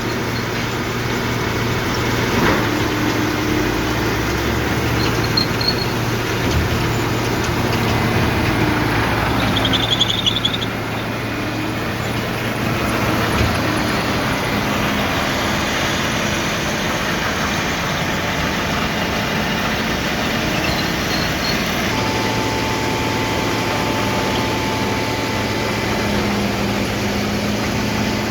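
Haybuster H1100 tub grinder running, powered by its tractor's engine: a steady mechanical noise with an engine hum, its tones shifting about halfway through.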